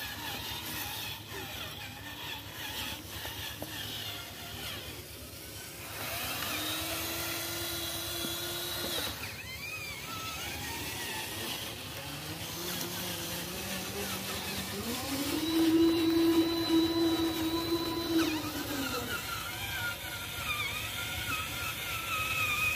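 Small electric motors of a radio-controlled dump truck whining in bursts of a few seconds each, as the truck drives and tips its bed to dump its load of soil. The loudest, steadiest whine comes a little past the middle.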